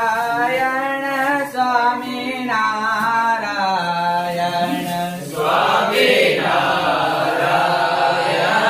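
Devotional singing: a single voice sings long, wavering held notes, and about five seconds in the sound fills out into a denser, fuller mix of voices and music.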